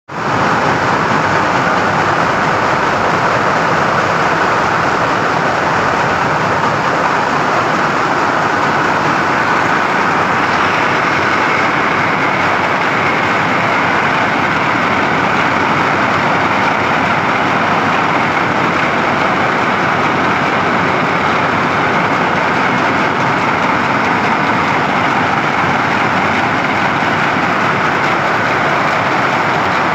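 Weaving looms running in a textile mill: a steady, loud, unbroken mechanical clatter.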